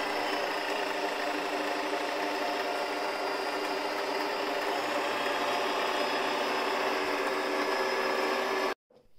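Toyota Jeans JS021 electric sewing machine running at a steady speed, a constant motor hum with mechanical rattle, cut off abruptly near the end.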